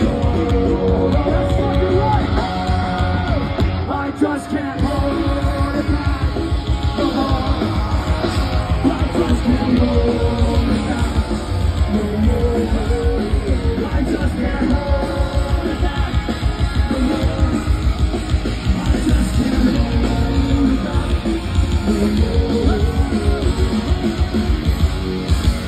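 Live punk rock band playing loud over a festival sound system, with electric guitars, drums and a singer, heard from within the crowd.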